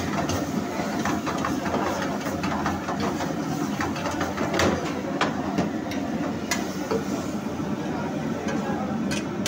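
Metal ladle scraping and knocking against a kadai as curry is stirred and tossed over a high gas flame, with irregular sharp clacks over the steady noise of the burner and frying. The loudest knock comes a little past halfway.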